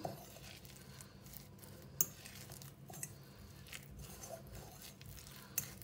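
A fork stirring a thick banana and coconut mixture in a glass bowl: faint scraping with light clicks of the fork against the glass, one sharper click about two seconds in.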